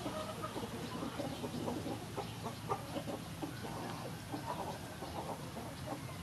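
Chickens clucking in short, irregular calls, over a faint steady low hum.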